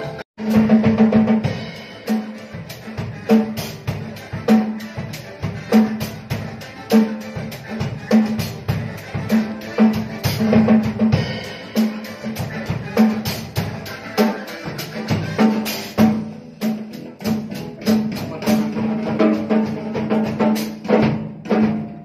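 Rock music driven by a drum kit: a steady beat of bass drum and snare hits with cymbals, starting abruptly just after the beginning.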